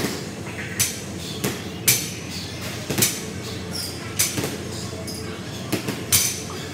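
Loaded barbell with bumper plates clanking as it is lowered and lifted, a sharp metal knock every second or so, with a brief high squeak near the middle.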